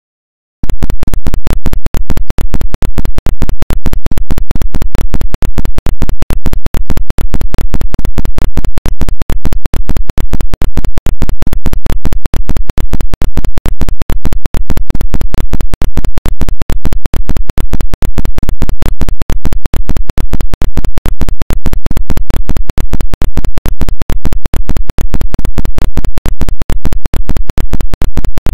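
Very loud, heavily distorted digital noise, clipped to full scale, stuttering on and off many times a second. It starts abruptly about half a second in.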